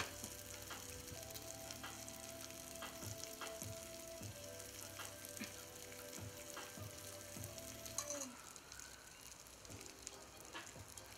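Marinated pork (dwaeji bulgogi) sizzling softly on a hot cast-iron grill pan, with scattered small crackles of fat. A sharp click comes right at the start.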